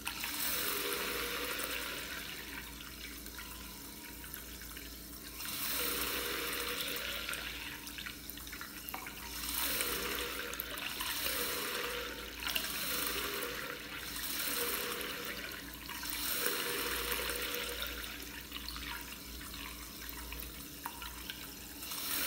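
Tap water running in a thin stream into a white sink basin and splashing beside the drain. The rush of water swells and eases in loudness every few seconds.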